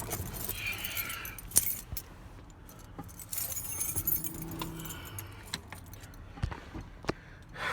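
Keys jangling on a key ring, with several sharp clicks, as the Silverado's ignition key is worked. No engine cranking or running is heard: the starter does not engage, because the starter relay is out.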